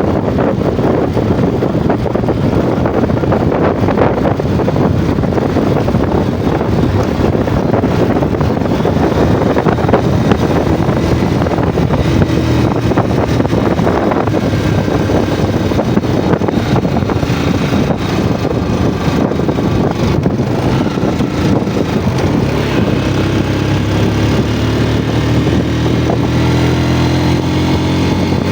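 Yamaha Jupiter MX single-cylinder four-stroke motorcycle engine running while the bike is ridden, under a heavy rumble of wind and road noise. Its pitch rises over the last few seconds as the bike speeds up.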